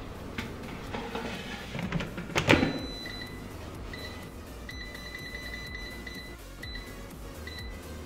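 A loud clunk about two and a half seconds in, then the Lock&Lock EJF996BLK air fryer's touch control panel beeping as keys are pressed: single short beeps, a longer run of rapid beeps, and two more short beeps.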